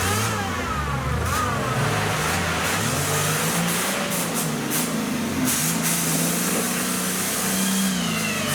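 Modified Toyota Land Cruiser 4x4 engine working hard off-road, revving up and down again and again as the truck pushes through mud.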